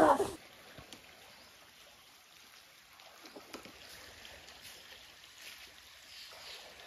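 A voice cut off abruptly in the first half second, then a small stream trickling faintly over a shallow bed.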